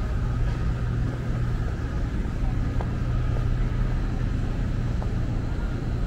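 Steady low mechanical hum, like an idling engine or a running machine, with a faint steady high tone above it.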